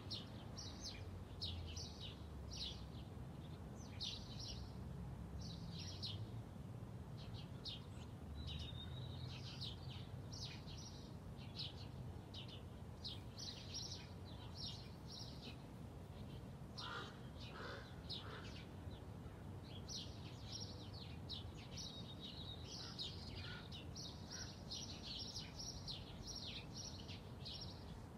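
Songbirds chirping, with many short high calls in quick runs throughout and a few lower calls a little past the middle, over a steady low rumble.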